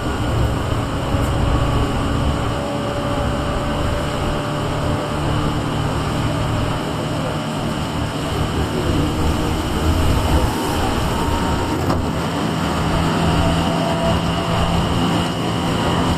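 Tobu 8000 series electric commuter train running steadily between stations, a continuous rumble of wheels on rail and running gear with faint steady tones over it.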